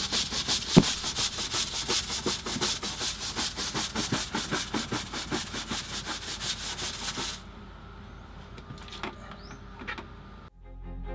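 Stiff deck brush scrubbing a wet teak deck in quick back-and-forth strokes, about five a second, stopping about seven seconds in, followed by a few light knocks. Music starts right at the end.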